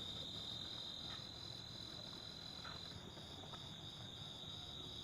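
Faint, steady chorus of insects: one continuous high trill, with a second high trill pulsing about three times a second.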